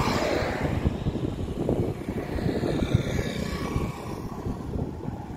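Road traffic passing: a car sweeps past with a falling pitch at the start, and a motorcycle passes about four seconds in.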